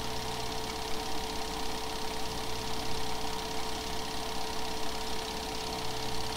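8mm film projector running: a steady mechanical whir with a constant hum-like tone over a hiss.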